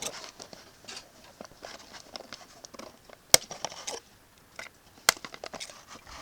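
Toy packaging being handled as an action figure is taken out of it: scattered crinkles and small clicks, with two sharp clicks, one about three seconds in and another about five seconds in.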